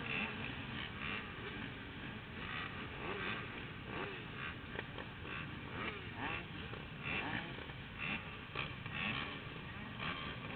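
Many off-road motorcycle engines running together, idling and revving, their pitches rising and falling over one another.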